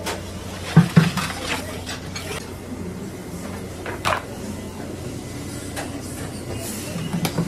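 Knocks and clatters of a large round metal baking tray being handled: two sharp knocks about a second in, another near four seconds, and a few lighter ones near the end.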